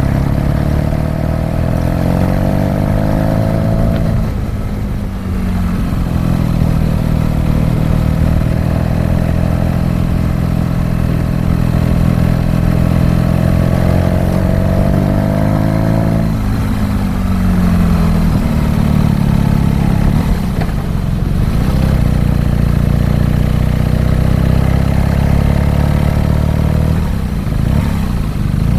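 BMW R nineT's air/oil-cooled boxer twin pulling hard, its note climbing steadily in each gear. The pitch falls away at a gear change about four seconds in and again about sixteen seconds in, then runs lower and steadier before easing off near the end.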